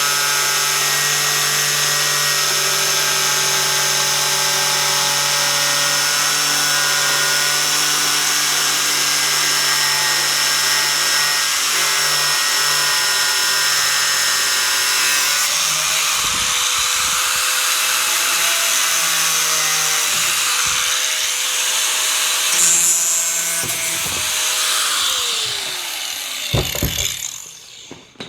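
Angle grinder with a cutting disc running and cutting along a line in fibreglass: a steady high machine whine with grinding noise. Near the end it is switched off and its pitch falls as it spins down to a stop.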